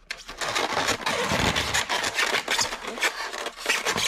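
Styrofoam packing tray squeaking and scraping as a die-cast model truck trailer is worked out of it by hand: a dense, continuous rubbing that starts about half a second in.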